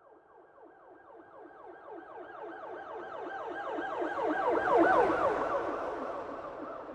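Police car siren on a fast yelp: rapid pitch sweeps several times a second, growing louder to a peak about five seconds in and then fading.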